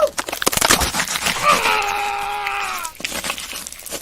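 A person screaming, the cry sliding down in pitch about a second and a half in, between rapid runs of sharp cracks and snaps.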